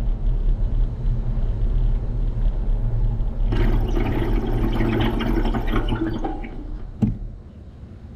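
Riding noise from a bicycle-mounted action camera: wind buffeting the microphone and tyre noise make a steady low rumble. A harsher hissing, crackling stretch comes in the middle, and a single knock comes about seven seconds in, after which it turns quieter.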